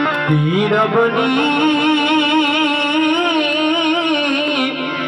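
Devotional folk song: a singer slides up into one long held note with a wavering pitch, over a steady low drone from the accompaniment.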